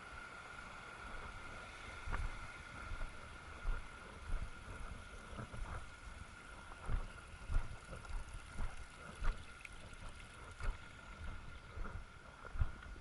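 A hiker's footsteps on a mountain trail, irregular thuds about once or twice a second starting about two seconds in. Under them runs the steady rush of a small mountain stream.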